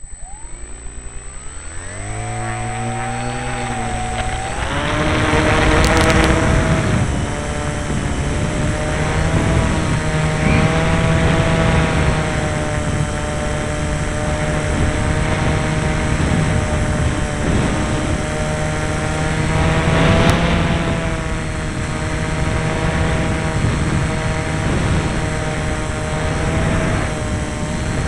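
Model airplane's motor and propeller, heard from on board, rising in pitch as it is throttled up over the first few seconds, then running steadily at high speed with wind rushing past, which swells twice.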